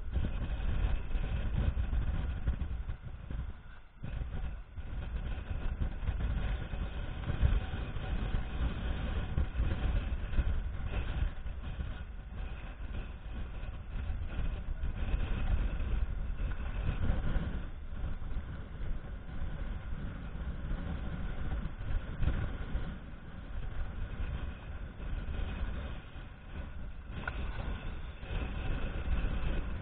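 Dive boat's engine running steadily, a low rumble with faint steady tones above it, dipping briefly about four seconds in.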